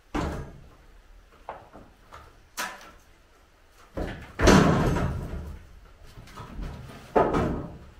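Timber ceiling shuttering being knocked and pried loose from set concrete with a long metal bar: sharp wooden knocks, then a loud crash a little over four seconds in that rattles on for a couple of seconds as loosened formwork comes down, and another crash near the end.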